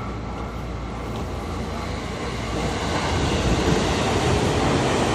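Electric commuter train running through a station: a steady rumble and rush of noise that grows louder about halfway through as the train comes closer.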